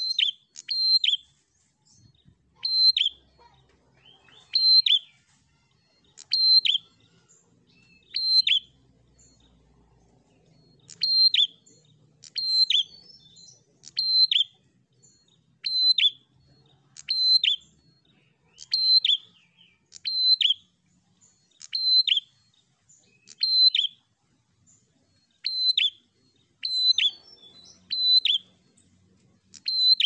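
Caged prenjak songbird calling over and over in steady song. Each call is a short, sharp high note that drops quickly in pitch, repeated about every one and a half to two seconds, sometimes as quick pairs.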